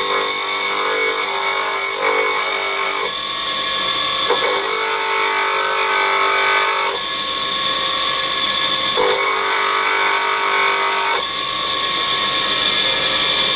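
Electric disc sander running while a chrome-plated brass doorknob part is pressed against the disc to square off its cut end. The grinding hiss changes every two to three seconds as the part is pressed on and eased off.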